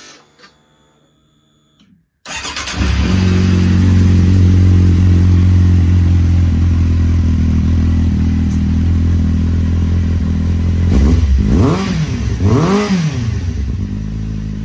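Kawasaki Z750's inline-four engine, fitted with an Akrapovič carbon slip-on exhaust, starts about two seconds in and settles into a steady idle. Near the end the throttle is blipped twice, the pitch rising and falling each time.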